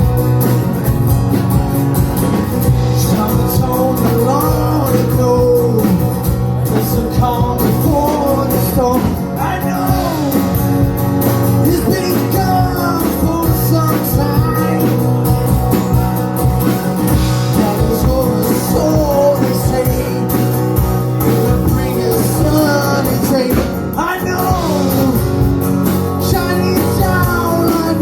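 Live band playing a rock song without words: guitar over a steady bass line and drums, with a lead melody of sliding, bending notes.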